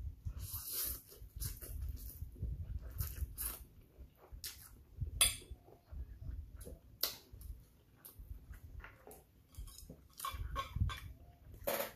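A person slurping and chewing a mouthful of 2x spicy instant noodles, with many short wet mouth clicks scattered throughout.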